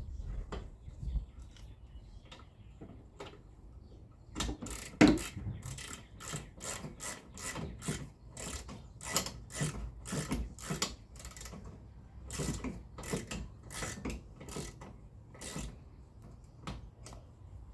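A socket ratchet clicking in runs as it tightens the 15 mm rear brake caliper bolt, with a sharp knock about five seconds in.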